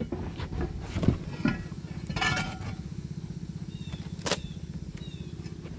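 A small engine running steadily in the background with a fast, even pulse, overlaid by a few sharp knocks and a short scraping rustle about two seconds in.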